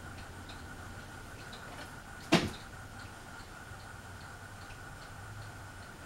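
Ceiling fans running fast, a steady low hum and a thin steady whine with light ticking about twice a second. A single sharp knock about two seconds in.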